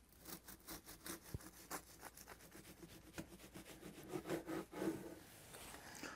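A knife sawing through a large grilled panino on a cutting board, in many short back-and-forth strokes through the crust.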